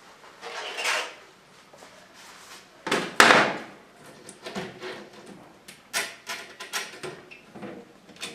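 Shoe cabinet parts being handled and fitted together: a string of knocks, clatters and short scrapes, the loudest about three seconds in, then several sharper clicks.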